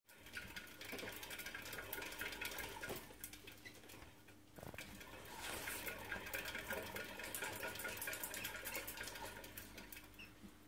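Pet rat running hard in a plastic exercise wheel: the spinning wheel gives a fast, dense clatter of small clicks that slackens for a moment about four seconds in and fades near the end.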